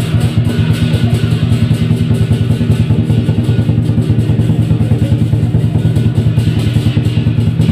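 Lion dance drum and cymbals playing a fast, steady beat, with the big drum's low boom sounding under rapid, even cymbal clashes.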